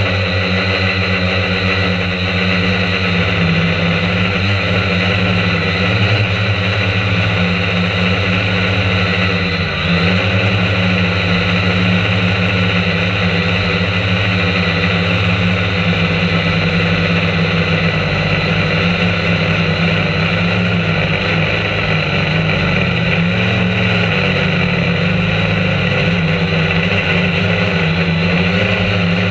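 Quadcopter drone's electric motors and propellers running with a steady buzzing drone, heard close up from the camera mounted on the drone itself; the pitch shifts slightly as it manoeuvres.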